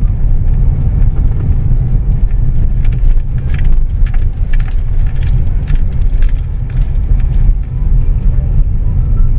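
Steady low road and engine rumble of a moving car, heard from inside the cabin, with light jingling rattles that come and go, most in the middle of the stretch.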